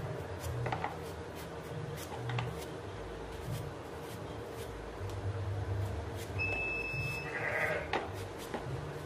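A kitchen knife peeling raw potatoes by hand, with soft scraping and faint clicks of the blade. A goat or sheep bleats briefly about seven and a half seconds in, just after a short steady high tone.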